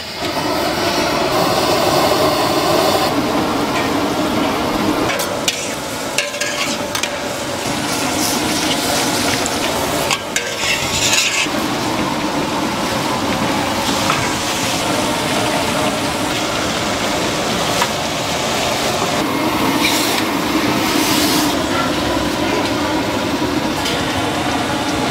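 Minced pork frying and sizzling in oil in a large wok, stirred and scraped with two metal spatulas, with scattered sharp clinks and scrapes of metal on the pan.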